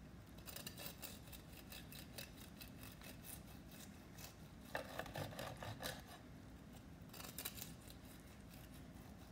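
A kitchen knife sawing back and forth through a roasted beef tri-tip with a crunchy, crusted outside, in three runs of quick scraping strokes. The middle run is the loudest.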